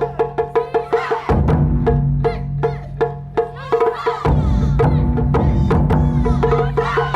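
Japanese taiko drumming: a fast, even run of sharp, high stick strikes, joined about a second in by deep, heavy beats on large drums.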